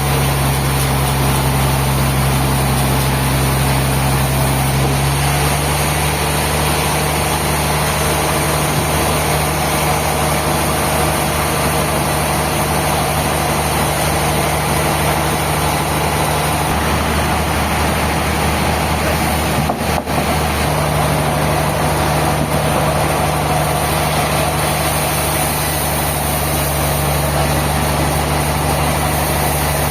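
Sawmill machinery's engine running steadily under a wide mechanical noise, its hum stepping slightly higher about five seconds in and briefly dipping about 20 seconds in.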